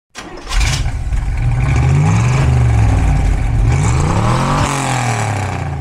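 A car engine revving, its pitch rising and falling several times.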